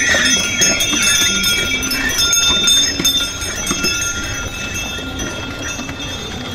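Bullock carts rolling past: bells on the bullocks jingling steadily, with hooves clopping and the wooden cart wheels rattling, growing fainter from about three seconds in.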